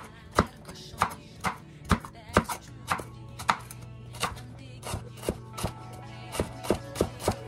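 Chef's knife chopping celery on a wooden cutting board: sharp knocks of the blade striking the board, about two a second at an uneven pace. Soft background music runs underneath.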